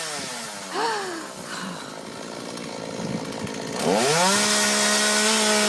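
Two-stroke chainsaw revved up about four seconds in, its pitch climbing quickly and then holding steady at full throttle, after a quieter, rougher stretch before it.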